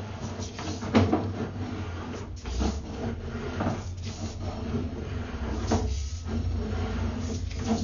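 Sewer inspection camera's push cable being fed by hand into a cast iron drain line: irregular knocks and scrapes every second or two over a steady low hum.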